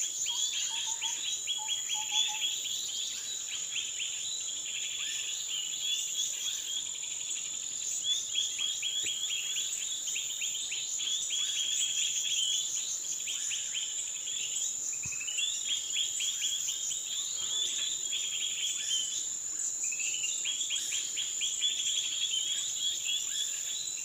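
A steady, high-pitched insect drone, with bird song over it: fast chattering phrases of rapid chirps, repeated again and again with short breaks between them.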